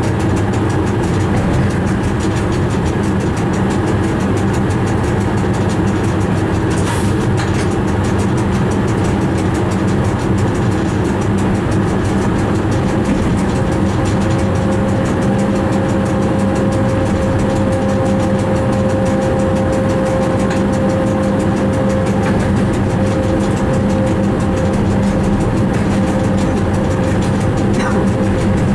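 Train cab noise while running on the line: a steady low hum with a mechanical rumble, joined about halfway through by a steady whine.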